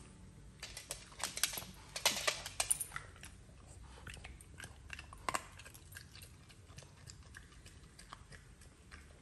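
A Cavalier King Charles Spaniel chewing and crunching something in its mouth: irregular crisp crunches, louder and closer together in the first three seconds, then fainter and sparser.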